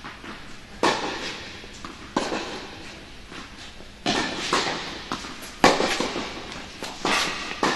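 Tennis ball hit back and forth in a rally on an indoor court: sharp racket strikes about every second and a half, each echoing through the hall, with fainter ball bounces between.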